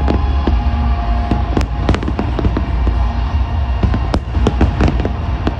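Fireworks display: aerial shells bursting in quick succession, about two sharp bangs a second over a constant low rumble.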